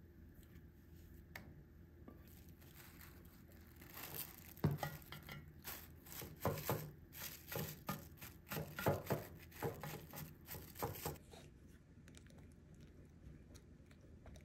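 Crinkling and rustling, in an irregular run of strokes that starts about four seconds in and stops a few seconds before the end.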